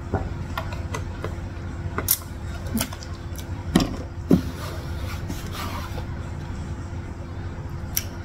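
Gulps from a plastic drink bottle, then two knocks about four seconds in as the bottle is set down on the table, over a steady low hum. A few small clicks and mouth sounds fall in between.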